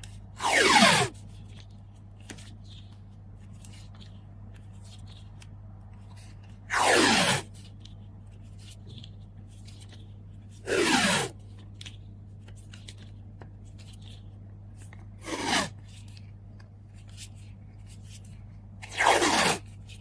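Adhesive tape pulled off the roll five times, each pull a short screech of about half a second that falls in pitch. Small rustles and taps of packing fill the gaps over a low steady hum.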